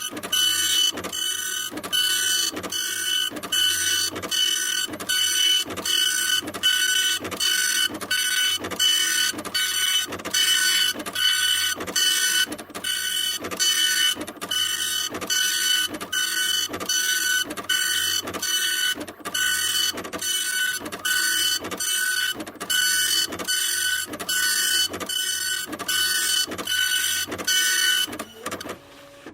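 Printer running a print job: a steady mechanical whine broken by a regular click about twice a second, stopping near the end.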